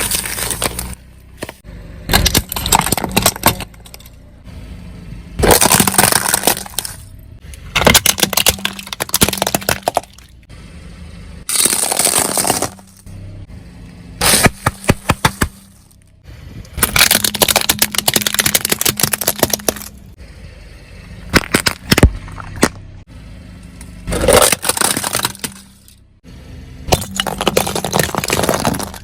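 Brittle objects crunching and cracking as they are crushed under a car's tyres, in about ten separate bursts of dense crackling a second or two long, with short quieter gaps between.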